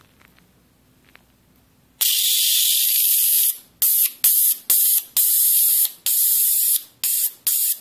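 Miniature bipolar Tesla coil switching on about two seconds in with a loud, high hiss of corona discharge from its wire terminals. The hiss cuts out briefly about eight times before carrying on.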